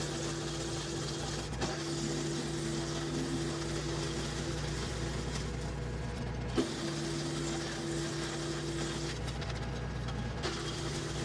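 Kubota L3560 tractor driving a WoodMaxx WM-8M PTO wood chipper, running with a steady mechanical hum. The hum's tone changes abruptly, each time with a click: about a second and a half in, around six and a half seconds in, and near ten and a half seconds in.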